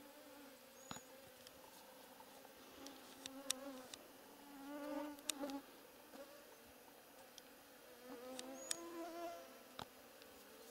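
Flying insects buzzing close to the microphone, a wavering drone that swells and fades twice. A few sharp clicks are also heard.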